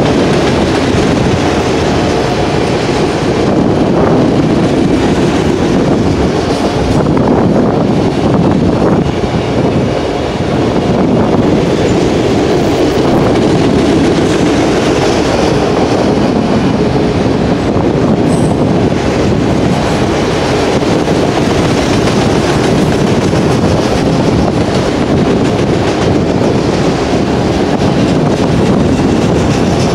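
Autorack freight cars rolling past at close range: the steady, loud noise of steel wheels running on the rails, with the rattle of the cars.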